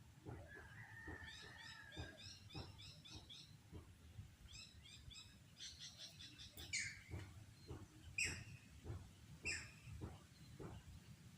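Birds calling: rapid series of high chirps, then three louder calls that sweep down in pitch, about a second and a half apart, with faint low knocks underneath.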